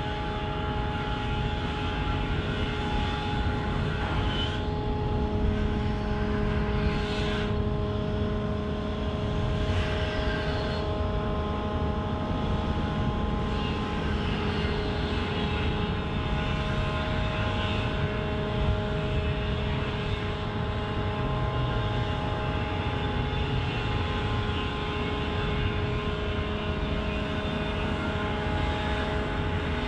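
Large ship's diesel engines and onboard machinery running steadily: a low rumble with several steady humming tones over it.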